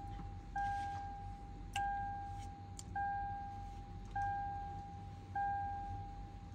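Toyota Land Cruiser's warning chime dinging over and over, about one ding every 1.2 seconds, each ding fading before the next. A few faint clicks come in between.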